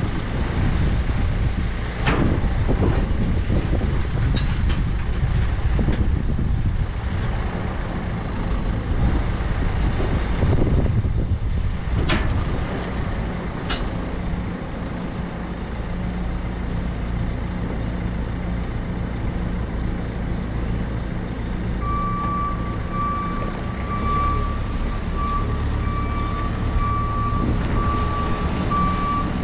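Telehandler's diesel engine running steadily, with a few sharp metal clanks from the scaffold tubes. About two-thirds of the way in, its reversing alarm starts beeping steadily as the machine backs away.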